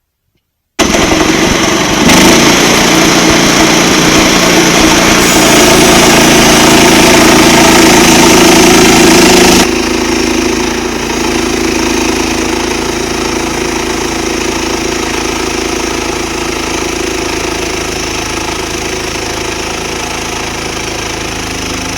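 Portable sawmill's gas engine running at high speed as a cut is taken through a log, starting abruptly and then dropping to a lower, steadier level about ten seconds in.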